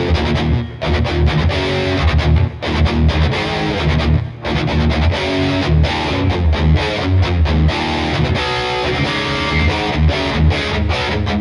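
Gibson Les Paul Studio 2015 electric guitar played with a distorted tone: a driving riff with brief breaks about a second, two and a half and four seconds in.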